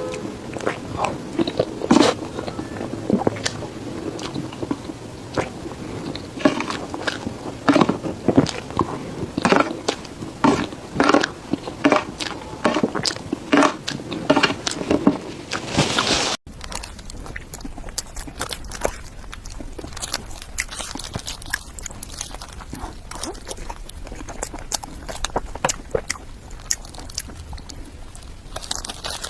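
Close-up sounds of a person biting and chewing cake, with frequent sharp, crunchy bites. About halfway through it cuts off suddenly to a steady low rumble with scattered faint clicks.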